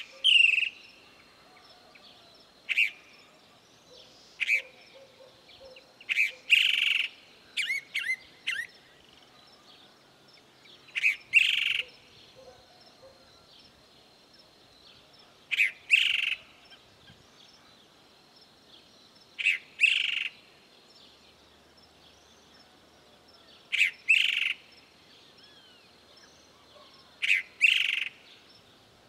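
Chalk-browed mockingbird (sabiá-do-campo) singing: short, loud phrases of a few notes, repeated every three to four seconds with pauses between.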